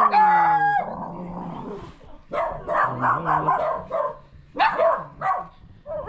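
Puppies barking and whining, mixed with people's voices.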